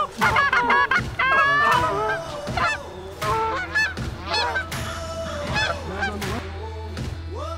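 A flock of Canada geese honking and clucking, with many short calls overlapping.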